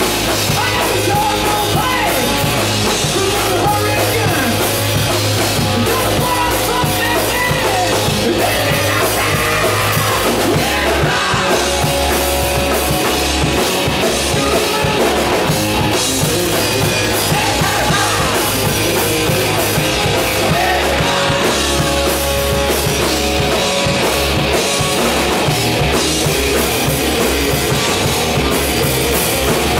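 Hard rock band playing live and loud: two electric guitars, bass guitar and a drum kit, with the bass line shifting note a few times.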